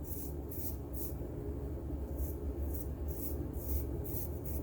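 Shavette razor blade scraping through lathered stubble in a run of short strokes, a crisp rasping swipe every fraction of a second, with a pause of about a second near the start.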